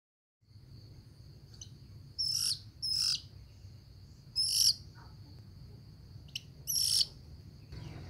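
Red-billed blue magpie giving four loud, harsh, rasping calls, each under half a second, about two seconds apart, with a faint steady high insect whine underneath.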